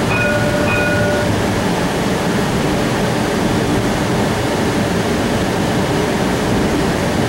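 Cincinnati Bell Connector streetcar, a CAF Urbos 3 light-rail car, running along the track as heard from inside the car: a steady rumble and rolling noise. In the first second a brief steady tone sounds and cuts off.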